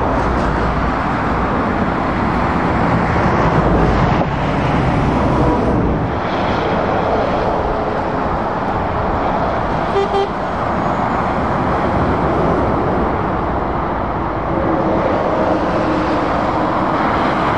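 Steady traffic noise of lorries and cars passing on a dual-carriageway road: tyre roar and diesel engine drone, heaviest in the first four seconds.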